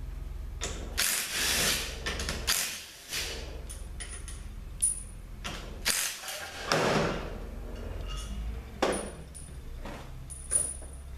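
Cordless DeWalt power driver running in several short bursts, spinning out the bolts that hold the two halves of a Ford 4R100 transmission front pump together.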